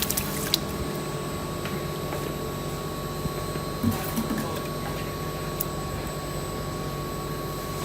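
Electric vegetable shredding and slicing machine running steadily with a motor hum, with a few light knocks about four seconds in.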